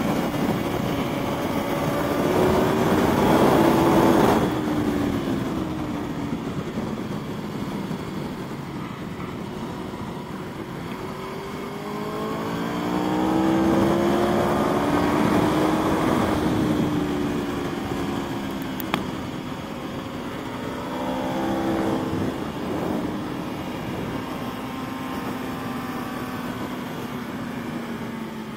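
Aprilia Tuono V4's V4 engine heard from onboard at track speed, its pitch rising under acceleration three times and falling away as the throttle closes for corners, over a steady rush of wind noise.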